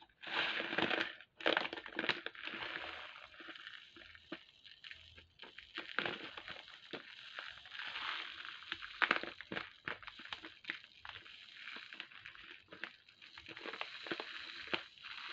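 Small glass seed beads pouring from a crinkling plastic bag into a clear jar: an irregular trickle of tiny clicks and rattles mixed with bag rustle, coming in uneven spurts.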